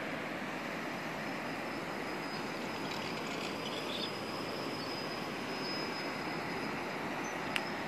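Small mountain stream running over rocks, a steady rushing of water. A faint thin high whine runs through it, and a single sharp click comes near the end.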